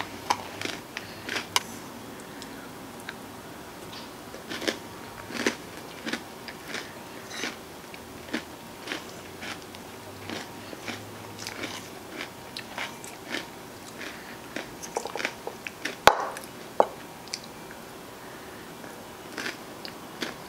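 Eating sounds from ice cream with crunchy toppings: chewing and mouth sounds, with a metal spoon scraping and clicking in a plastic bowl. The clicks come irregularly, and the sharpest one is about three-quarters of the way through.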